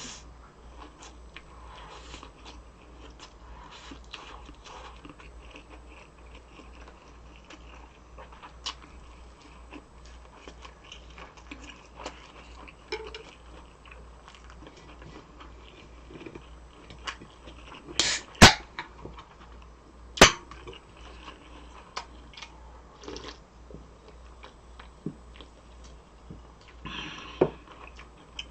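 Close-miked chewing and biting of food, with small wet mouth clicks throughout. Two sharp, louder clicks come a little past the middle, about two seconds apart.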